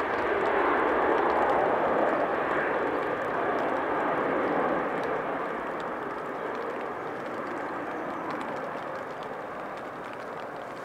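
Airbus A350 jet engines and wheel spray on a wet runway during the landing roll: a steady rushing noise that slowly fades as the airliner slows and draws away.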